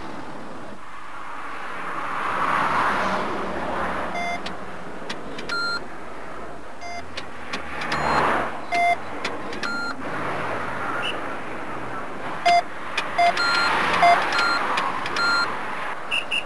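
Road traffic: cars pass by in three swells. Short electronic beeps sound now and then, several in quick succession near the middle and again toward the end, and they stand out above the traffic.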